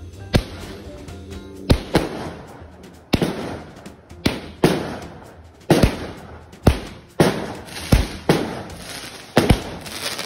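A string of firecracker bangs, about a dozen at uneven intervals, each sharp crack trailing off in a short echo, with faint music underneath.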